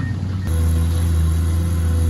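Heavy diesel engine of a truck or excavator running steadily, growing louder about half a second in and holding there.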